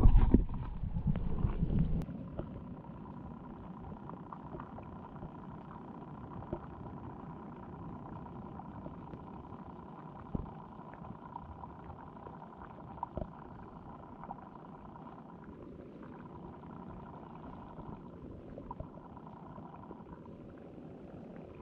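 Underwater sound picked up by a submerged camera: low rumbling bumps for about the first two seconds as the camera is settled, then a faint steady underwater hum with a thin high tone and a few scattered clicks.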